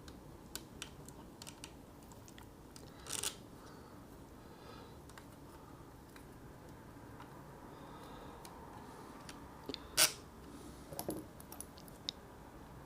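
Faint scattered clicks and taps of small plastic RC shock parts and tools being handled on a workbench, with a short rustle about three seconds in and a louder one about ten seconds in.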